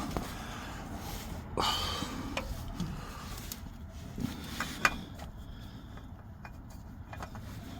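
A few light clicks and knocks of hands handling parts, the sharpest about five seconds in, over a low steady hum.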